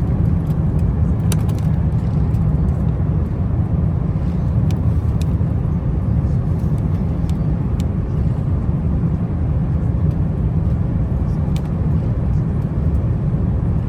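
Airbus A350 airliner noise during landing: a steady low rumble that holds unchanged, with a few faint ticks.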